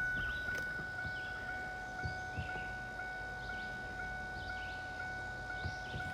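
Repeating electronic warning chime, dinging at an even pace of about two a second over a steady tone, with faint bird chirps.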